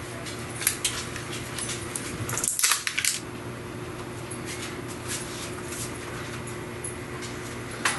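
Plastic bottle of poppy seed dressing being handled and shaken: a burst of quick rattling clicks about two and a half seconds in, with scattered lighter clicks and a steady low hum underneath.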